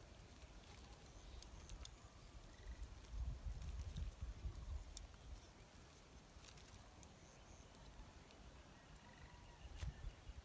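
Quiet outdoor ambience: low rumbles about three to four seconds in and again near the end, with scattered small clicks and a few faint short chirps.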